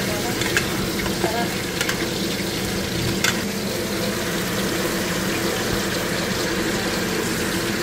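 Chunks of meat sautéing with onion and tomato in a pot, a steady sizzle over a low hum, with a few sharp clicks.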